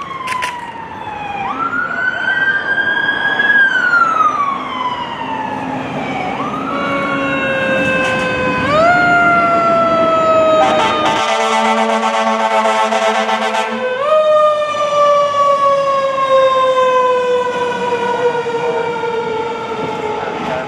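Fire engine sirens wailing, several overlapping, each rising quickly and then sliding slowly down in pitch. About halfway through, a steady air horn sounds for about three seconds.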